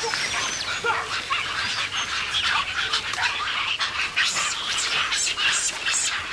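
Crested black macaques giving many short, overlapping high-pitched calls: a troop in panic over a young macaque caught in a snare.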